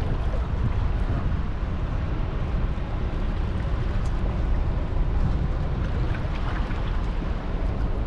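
Steady wind buffeting the microphone, mixed with the noise of a fishing boat and the water around it at sea.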